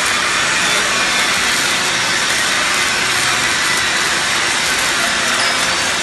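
Automated welding arc from a CNC gantry torch fed by a Fronius power source, burning without a break along a long seam in stainless steel plate: a loud, even hiss.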